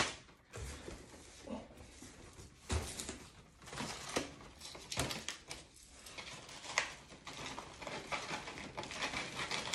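Brown kraft packing paper rustling and crinkling as it is unwrapped from a shipped potted plant, with several sharper crackles scattered through.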